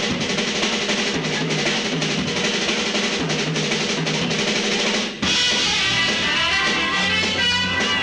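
Live rock show band playing, with the drum kit to the fore in a drum-roll fill with snare, bass drum and cymbals. There is a brief break about five seconds in, then the band comes back in with a horn section of trumpets playing.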